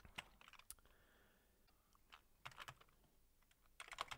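Computer keyboard being typed on, faint, in three short bursts of key clicks with pauses between.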